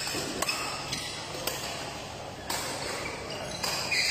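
A badminton rally: the sharp cracks of rackets striking a shuttlecock, several in a row, and short high-pitched squeaks of court shoes on the synthetic mat near the end.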